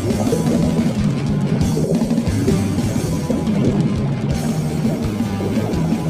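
Loud, fast hardcore rock music with a pounding drum kit and electric guitar.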